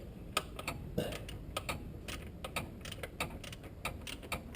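Ratchet wrench clicking in a run of light, sharp ticks, about three to four a second, while loosening an engine mount bolt.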